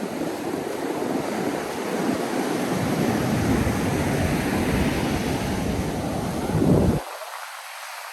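Ocean surf washing onto a sandy beach, with wind buffeting the microphone in a deep rumble. The surge swells near the end and then the low rumble cuts off suddenly, leaving only a thin hiss.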